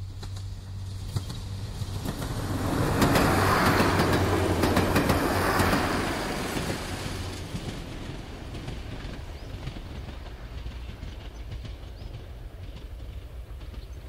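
A train passing by: the sound builds over a couple of seconds, is loudest about three to six seconds in with a quick rattle of wheels, then fades away into a steady low background rumble.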